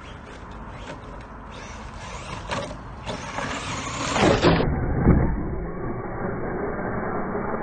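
Electric motor of a Traxxas Ford Fiesta rally RC car whining as the car drives over dirt. The whine swells about three seconds in and drops sharply in pitch just after four seconds.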